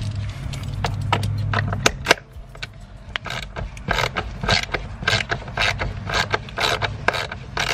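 A low hum for about two seconds, then a hand socket ratchet clicking in quick back-and-forth strokes, about three clicks a second, as a bolt at the car battery is loosened.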